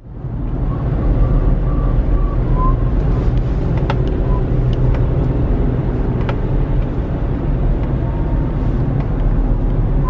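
Car engine and tyre rumble heard from inside the cabin of a moving car, steady after rising back in just at the start, with a few faint clicks.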